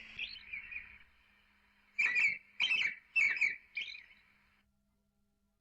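Songbird chirping: one call at the start, then four quick chirps about half a second apart from two seconds in, over a faint steady high background. Everything cuts out to silence for roughly the last second.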